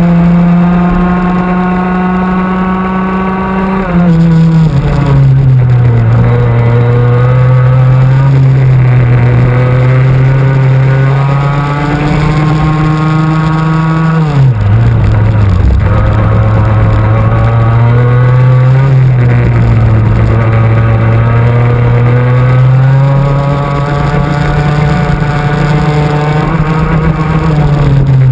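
Two-stroke racing kart engine at full throttle, heard onboard, its pitch climbing slowly along the straights. The revs drop sharply under braking for corners about four seconds in and again about fourteen seconds in, with a smaller dip near nineteen seconds, then climb again.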